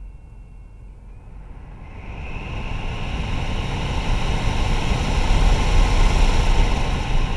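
Mac Studio (M1 Max) cooling fan being pushed toward full speed. A faint high-pitched whine, the cooling-system noise owners complain of, shifts up slightly and is swallowed about two seconds in by a rush of air that grows loud and steady.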